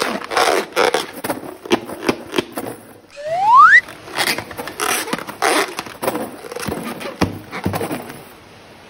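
Wet slime squelching and crackling as it is squeezed and mixed, with one short rising squeak about three and a half seconds in. The sticky sounds die away near the end.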